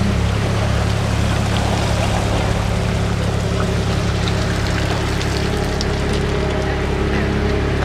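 Drag boat's engine idling steadily, with water noise.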